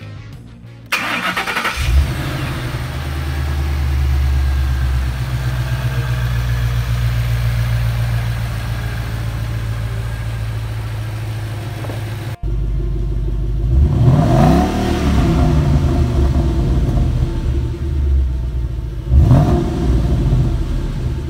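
2013 Ford Mustang GT's 5.0-litre V8 starting about a second in and settling into a steady idle. After a cut, heard at the exhaust tip, it is revved twice, the pitch rising and falling each time.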